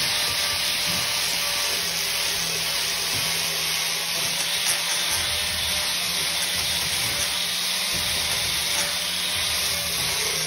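Corded electric angle grinder running steadily, its disc grinding down the old paint on the floor.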